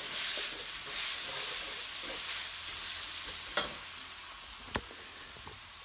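Curry base of onions, curry paste and spices with freshly added tomatoes sizzling in a hot wok while being stirred; the sizzle slowly dies down. Two sharp knocks of the utensil on the wok a little past the middle.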